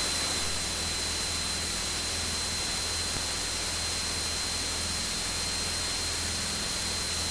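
Steady hiss and static of the cockpit headset/intercom audio feed in a Piper Pacer in flight, with a faint steady low hum of the engine under it and a thin, steady high whine.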